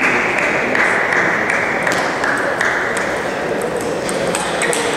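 Table tennis balls clicking off bats and tables in scattered, irregular taps, over a steady din in the hall.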